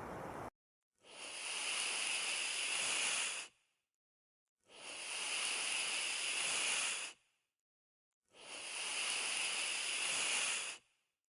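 An animal hissing: three identical breathy hisses, each about two and a half seconds long, with about a second of silence between them.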